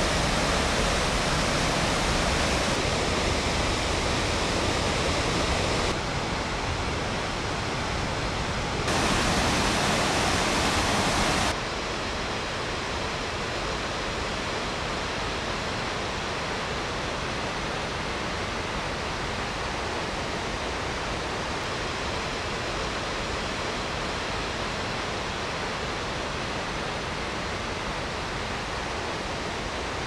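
Dettifoss waterfall: a powerful cascade of river water plunging into a canyon, heard as a steady rushing noise. The level jumps up and down abruptly a few times in the first twelve seconds, then settles into a slightly softer, even rush of churning water.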